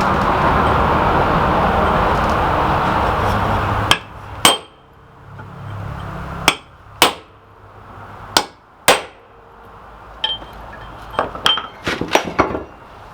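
Hammer blows on the steel of an old post vise: strikes in pairs about half a second apart, each with a short metallic ring, then a quicker run of lighter taps near the end. A steady rushing noise fills the first four seconds and cuts off suddenly.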